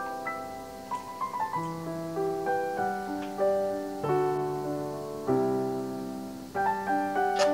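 Background piano music, with a new chord every second or so.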